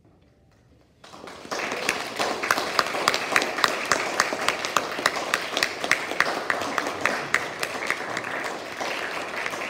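A small audience applauding: it starts about a second in after near silence and fills out within half a second, with individual claps close by standing out sharply over the rest.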